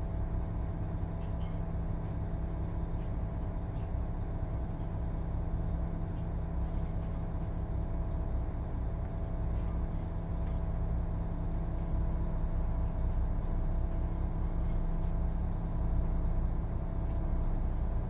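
Volvo DH12 12-litre straight-six diesel of a Volvo B12BLE bus idling steadily in neutral, heard from the driver's cab.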